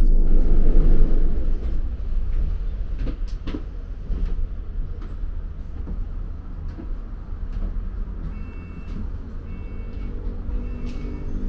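London double-decker bus running, its engine rumble loud for the first second or so and then settling lower, with rattles and clicks from the bodywork. Near the end a run of short high beeps repeats several times.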